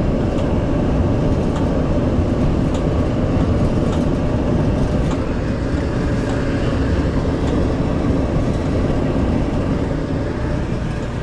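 Maytag Bravos electric dryer running on a test start after repair, its drum turning with a steady low rumble and a few faint ticks.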